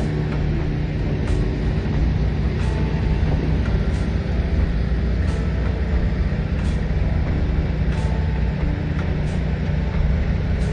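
Hydraulic excavator's diesel engine running steadily, with faint regular ticks about every second and a third.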